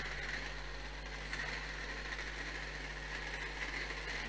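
Room tone: a steady low electrical hum with faint hiss from the sound system, with no other event.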